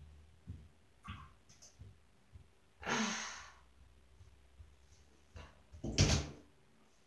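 Handling noise from a plush toy cat pressed and moved close to the phone's microphone: scattered soft knocks, a breathy rush about three seconds in, and a louder thump near the end.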